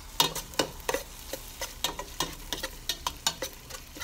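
Metal spoon scraping and clinking against a stainless steel pot as chopped onion, garlic and ginger are stirred in hot oil, with irregular clinks about three a second over a light sizzle.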